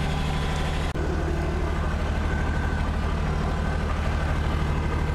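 Kubota BX2680 tractor's three-cylinder diesel engine idling steadily while warming up after a cold start in deep frost. A brief click comes about a second in.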